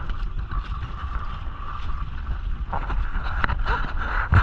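Small outrigger fishing boat under way, its engine running steadily with wind and water noise, and a few sharp knocks near the end.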